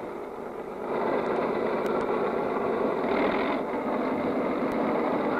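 Cartoon sound effect of a tank's engine running as it drives along, a steady rough rumble that gets louder about a second in.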